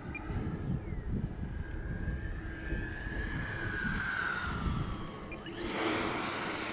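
Electric ducted-fan whine of an E-flite Havoc Xe 80mm EDF RC jet in flight. The pitch sinks slowly over several seconds, then about five and a half seconds in the whine jumps sharply up to a high, steady, louder pitch. Wind rumbles on the microphone underneath.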